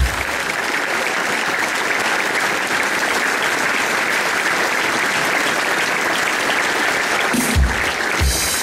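Audience applauding steadily, with a couple of low thumps near the end.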